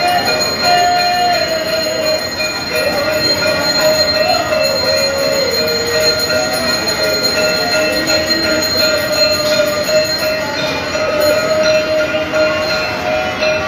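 Temple bells ringing continuously during the aarti, a dense clanging with steady ringing tones, and a wavering tone sliding up and down over it.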